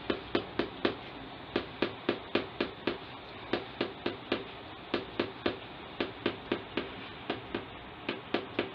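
A quick series of sharp taps, about four a second, in runs of four to six with brief breaks between them.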